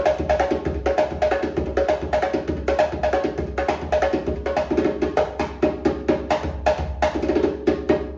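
Djembe played with the hands in a fast, steady rhythm of strokes.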